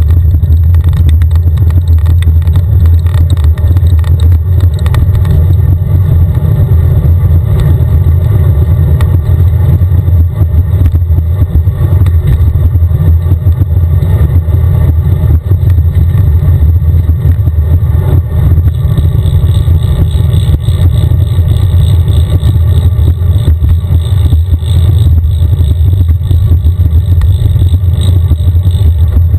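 Wind buffeting a bicycle-mounted camera's microphone while riding along a highway: a loud, steady low rumble, with road traffic mixed in.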